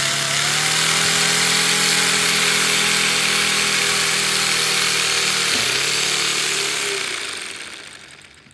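Paper four-cylinder radial air engine model with a paper turbocharger, running on air: a loud rushing hiss over a steady buzzing hum. The hum dips briefly about five and a half seconds in, and the sound fades away over the last second and a half as the engine winds down.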